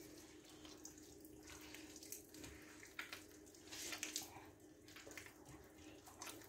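Faint wet squishing of a hand kneading soft butter and raw eggs together in an earthenware bowl, in short irregular strokes.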